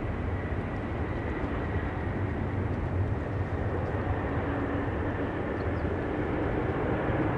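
Jet engines of a Boeing 777-200 airliner running as it rolls out on the runway after touchdown: a steady roar with a faint high whine running through it.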